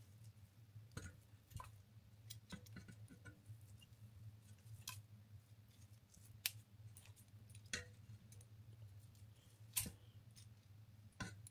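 Kitchen scissors snipping through boiled lean pork shoulder held with metal tongs over a steel pot: faint, scattered sharp clicks and snips a second or two apart, over a steady low hum.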